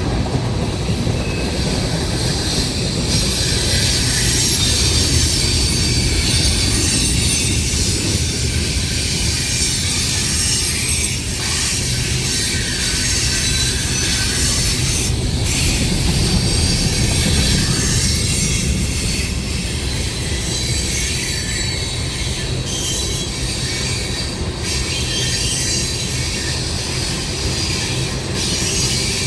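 Freight cars of a manifest train rolling past, a steady rumble of wheels on rail with a continuous high-pitched wheel squeal.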